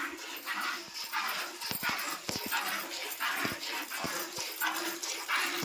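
Milk squirting into a pail as a cow is milked by hand: a short hiss with each pull, about two a second in a steady rhythm.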